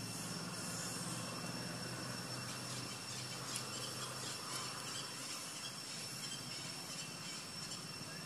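Forest ambience: a steady high-pitched insect drone over a low hum that fades about halfway through.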